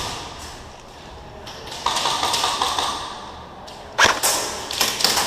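Airsoft guns firing: a spell of rapid shots about two seconds in, then a sharp crack about four seconds in and a few more quick shots after it.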